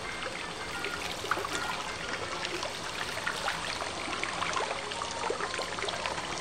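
Water running from a tap and splashing over hands: a steady trickle broken by many small splashes.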